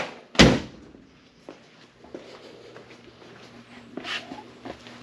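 Shop handling noises: one loud thump about half a second in, then quiet shuffling and a few small clicks and knocks over a faint steady hum.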